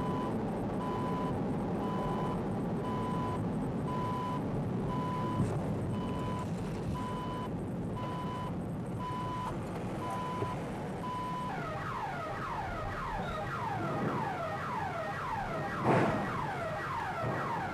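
Electronic alarm sounding over a low rumble: a single beep repeating about once a second, which switches about two-thirds of the way in to a rapid run of falling sweeps, several a second, in the pattern of a car alarm. A sharp knock sounds near the end.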